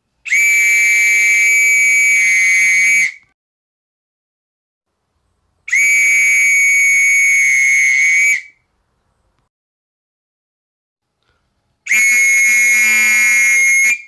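Whistle blown in three long, steady, high-pitched blasts of about three seconds each, with a couple of seconds of silence between them.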